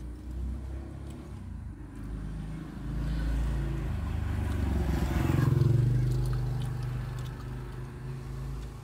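A motor vehicle passing close by, heard from inside a car: its engine rumble builds over a few seconds, is loudest about five to six seconds in, then fades away.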